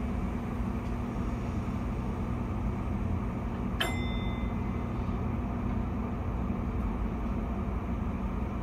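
Steady hum inside the cab of a Keio 5000 series train standing at a stop signal, its onboard equipment running while the train is stationary. A single click with a short beep comes about four seconds in.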